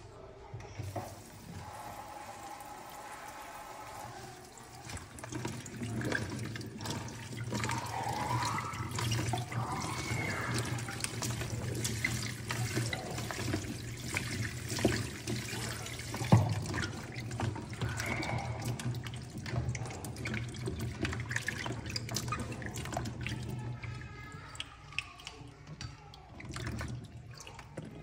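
Kitchen tap running into a stainless steel sink as grapes are rinsed by hand in a plastic tub, with splashing and the clatter of the tub and a plastic colander. The water comes on a few seconds in and eases off shortly before the end.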